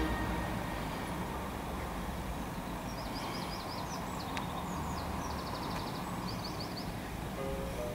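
Outdoor city ambience: a steady low rumble of distant traffic, with a small songbird giving several runs of quick, high chirps in the middle.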